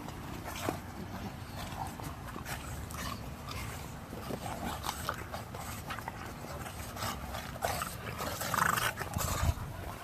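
Two English bulldogs play-wrestling on a raised fabric dog cot: irregular scuffling and rustling with short dog vocal noises, getting busier and louder near the end.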